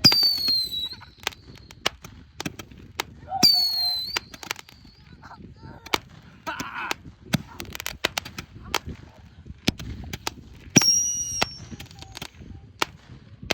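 Small handheld fireworks going off: three short, high whistles, each falling slightly in pitch, the first right at the start, the next about three and a half seconds in and the last near the end, among many sharp scattered pops and crackles.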